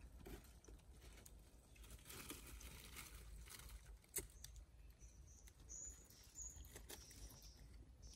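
Near silence: faint rustling and scratching of hands pulling dry leaves and debris from a hole at the base of a tree trunk, with one sharper click about four seconds in.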